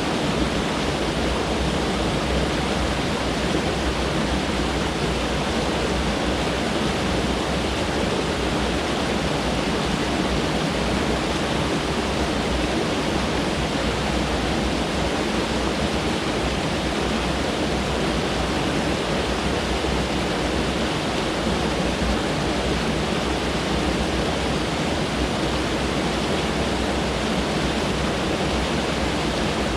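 Mountain stream rushing over rocks close by: a loud, steady rush of water with no breaks.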